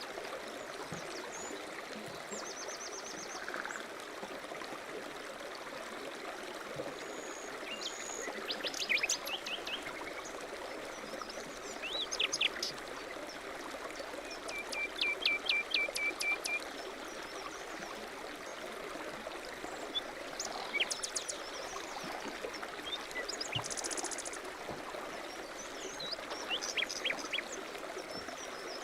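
A stream running steadily, with small birds chirping over it in short series of quick notes every few seconds.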